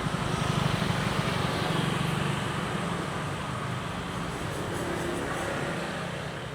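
Street traffic: a motor vehicle engine running close by, loudest in the first couple of seconds and then easing off, over a steady traffic rumble.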